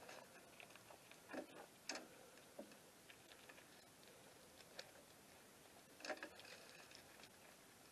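Near silence with a few faint, irregular clicks and light knocks, spaced about a second or more apart.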